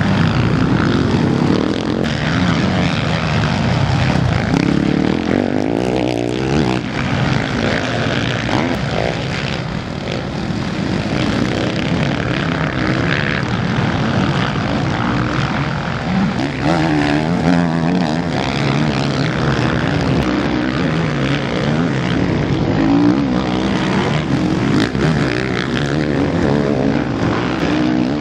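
Several motocross bikes racing, their engines revving up and down over and over as the riders work the throttle through corners and jumps.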